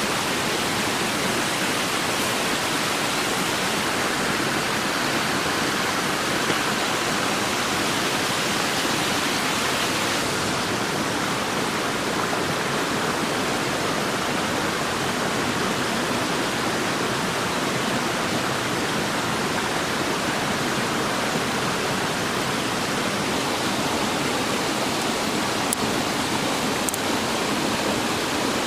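Steady rushing of a stream, an even wash of water noise, with two faint clicks near the end.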